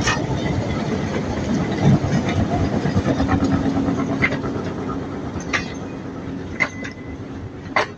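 Train running along the track: a steady rumble that slowly fades, with four sharp clicks about a second apart in the second half.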